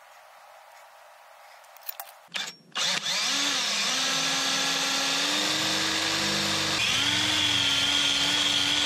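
Power drill boring a hole through 1/8-inch aluminum bar stock for a backing plate. After a couple of short knocks, the drill motor starts about three seconds in and runs with a steady whine, its pitch stepping up slightly about seven seconds in.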